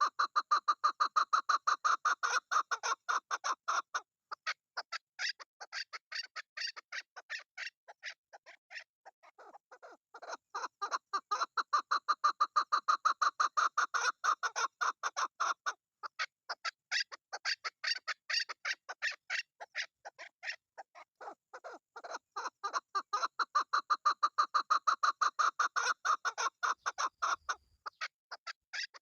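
Chukar partridge calling: a rapid run of short repeated chuck notes, several a second, in bouts that build to a loud peak and then die down to softer notes, three times over.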